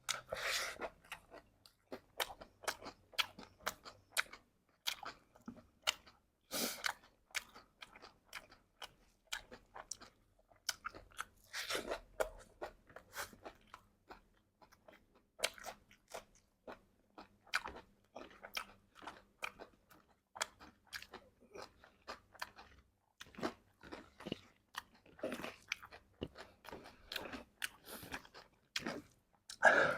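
A person chewing a mouthful of crunchy chatpate of puffed rice and sev, with many irregular crisp crunches and a few louder bites.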